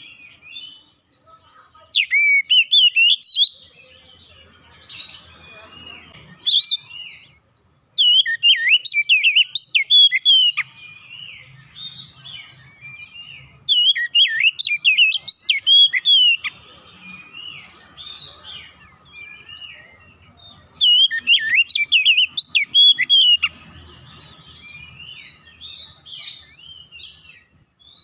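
Oriental magpie-robin singing: loud bursts of rapid, varied whistled phrases two to three seconds long, about every six seconds, with softer twittering in between.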